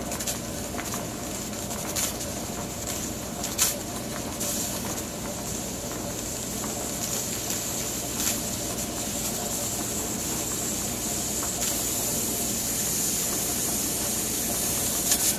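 Pressure canner hissing steadily as steam escapes at the weighted regulator while the pressure nears 10 pounds, growing a little louder toward the end, with a few faint clicks.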